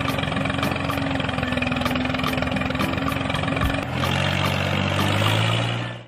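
Tractor engine running steadily with a fast even beat; its note drops lower about four seconds in, and the sound fades out at the end.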